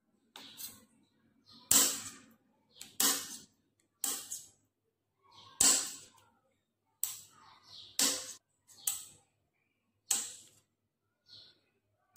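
Kitchen knife slicing mushrooms directly on a stone countertop: sharp clicks of the blade striking the stone, irregular, about one a second.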